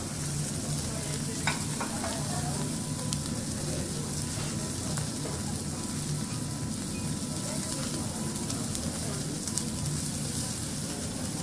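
Food sizzling steadily on a teppanyaki iron griddle, with a few light ticks from the cooking utensils.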